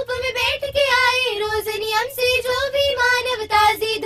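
Young girls singing a song into a studio microphone, a melody of held notes broken into sung syllables.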